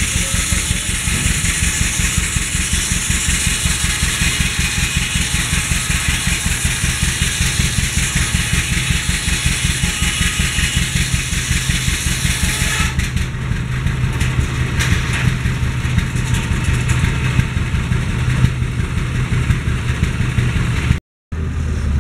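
Antique engine running steadily with a fast, even firing beat, powering a belt-driven circular sawmill. A loud high rushing noise from the saw rides over it and stops abruptly a little past halfway, leaving the engine's beat plainer.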